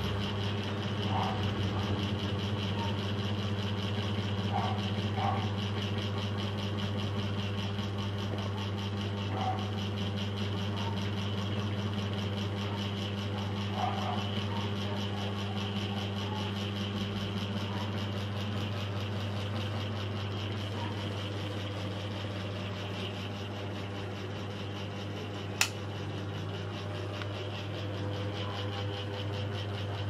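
Niga FC05-60 600 mm mini ceiling fan running with a steady, even hum. There is one sharp click about 25 seconds in.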